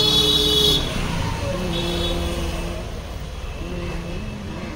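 Street traffic with vehicle horns sounding: one long horn blast in the first second, then fainter held horn tones over a steady traffic rumble.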